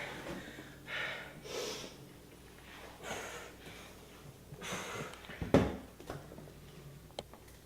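A person breathing hard while exercising: short noisy breaths every one to two seconds. A single thump about five and a half seconds in is the loudest sound.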